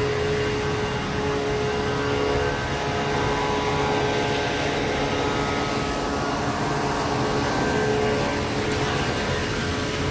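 An engine running steadily, with an even hum and a constant held tone over it.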